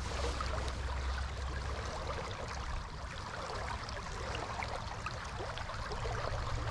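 Shallow river current rushing and babbling, a steady wash of small splashes with a low, even rumble underneath.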